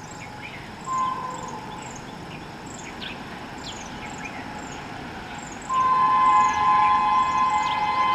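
A WAP-7 electric locomotive's horn with a hoarse, "sore-throat type" tone. It gives a short toot about a second in, then a long, louder blast begins near six seconds in and is still sounding at the end.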